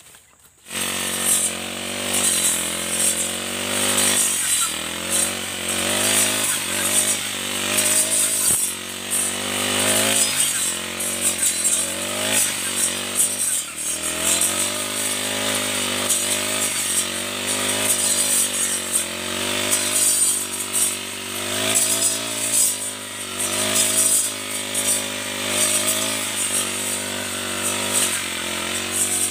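Four-stroke brush cutter fitted with a circular saw blade, running at high throttle and cutting into thick shrubs. It starts suddenly about a second in, and the engine pitch keeps dropping and rising again as the blade bites into the dense stems.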